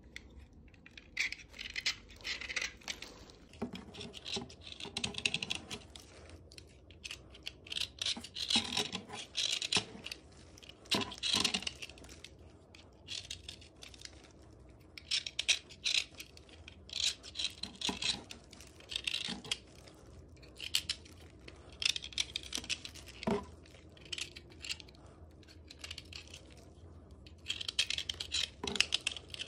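A snap-off utility-knife blade scraping a lump of dry white clay in short runs of scratchy strokes, with pauses between them and a few sharp ticks.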